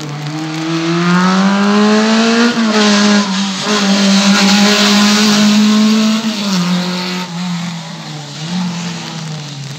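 Hatchback slalom race car accelerating hard up the hill, its engine note rising, dropping once at a gearshift about two and a half seconds in, then held high. A loud rush of tyre noise on the wet tarmac comes as it passes, and the engine note falls and fades as it goes away.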